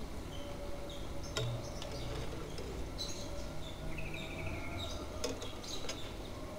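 Outdoor background: scattered short bird chirps over a low steady rumble, with a sharp click about a second and a half in and another about five seconds in.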